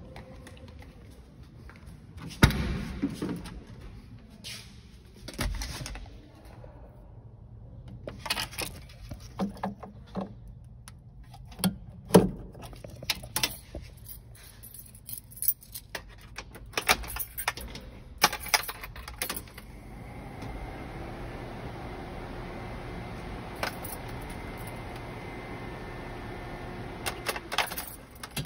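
A car door opens with a loud knock about two seconds in, followed by keys jangling and a string of clicks and knocks as someone gets into the driver's seat. From about two-thirds of the way through, a steady faint hum comes on.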